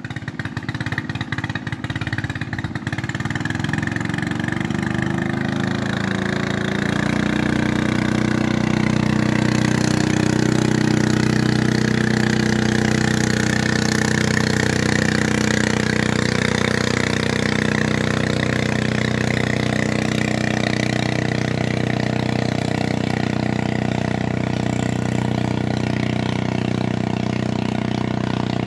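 Boat engine running, its separate firing beats audible at first, then picking up speed over the first several seconds and settling into a steady, even running note.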